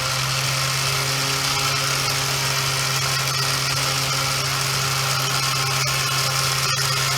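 Harbor Freight Badland electric winch motor running steadily with an even hum, spooling the line back in after the recovery.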